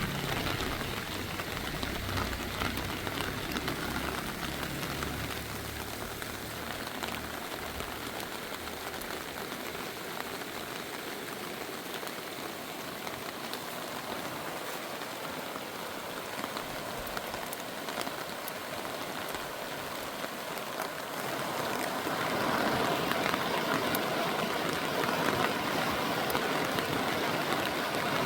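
Steady rushing of water, growing louder about 22 seconds in.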